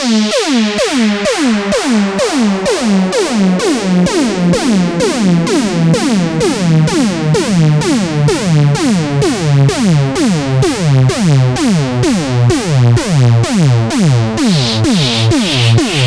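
EDM synthesizer sample: a fast, even run of short synth notes, about three a second, each dropping quickly in pitch, over a pulsing bass note. A noisy hiss layer joins near the end.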